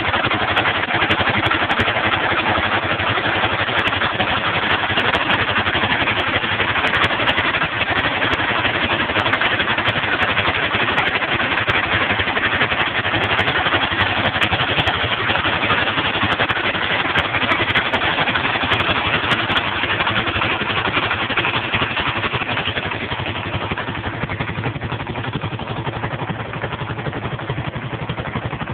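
Small engine of a trailer-mounted water pump running steadily at constant speed while it pumps water through the hoses. It grows slightly fainter near the end.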